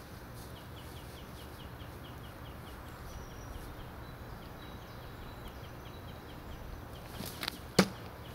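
A thrown knife striking a wooden target once near the end, a single sharp knock, just after a couple of lighter clicks.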